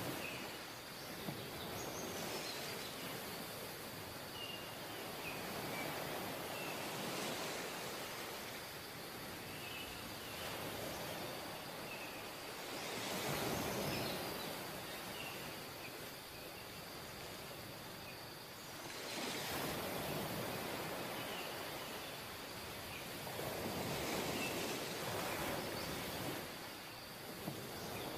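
Ocean surf on a sandy beach: a steady wash of waves and foam, swelling several times as breakers crash onto the shore.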